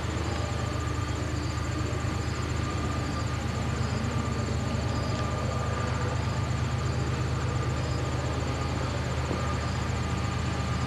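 CSX GE ES44DC (GEVO) diesel locomotives rumbling steadily as the train approaches, growing slightly louder. Insects chirr high and rhythmically over it.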